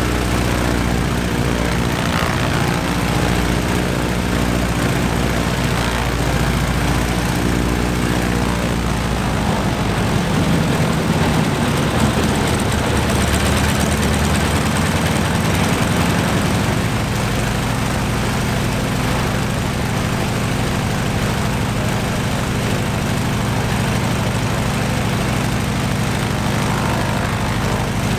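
Stinson L-1's nine-cylinder Lycoming R-680 radial engine running with the propeller turning. Its note shifts about ten seconds in, then settles into a steady run.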